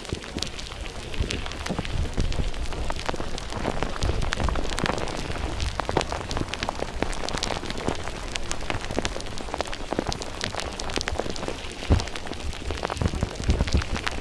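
Water pattering and splashing, a dense crackle of many small drop-like clicks over a low rumble.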